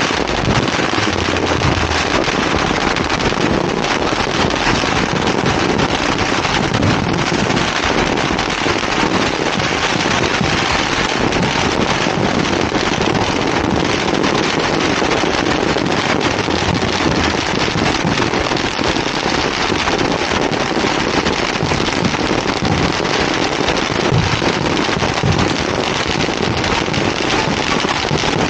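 Many firecrackers and fireworks going off at once, the rapid pops so dense that they merge into a steady crackle.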